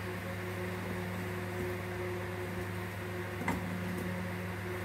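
Steady low machine hum, with one short click about three and a half seconds in.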